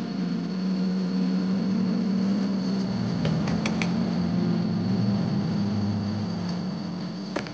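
Steady low mechanical hum with a faint high whine over it, broken by a few light clicks a little past the middle and one sharper click near the end.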